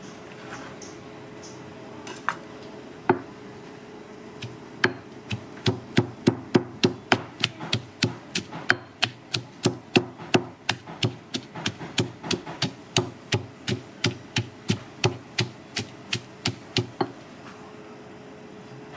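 Knife chopping food on a cutting board: a few scattered knocks, then a fast, even run of strikes, about three a second, beginning about five seconds in and stopping near the end.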